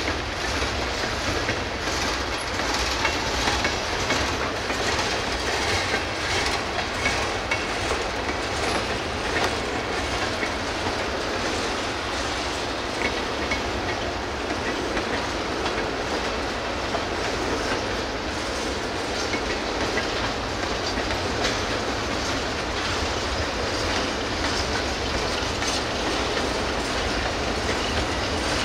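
Freight cars of a CSX manifest train rolling past at steady speed, wheels clicking over the rail joints in a continuous clickety-clack over the rumble of the train.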